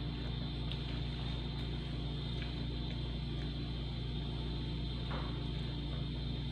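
A steady low mechanical hum with a faint high whine. About five seconds in, a metal spoon faintly scrapes against the ceramic bowl as it is picked up.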